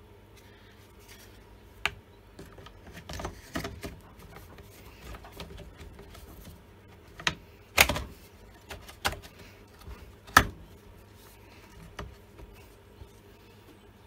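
The plastic starter housing of a Stihl MS170 chainsaw being handled and fitted back onto the saw: scattered clicks and knocks of plastic against the saw body, with two sharper, louder knocks past the middle.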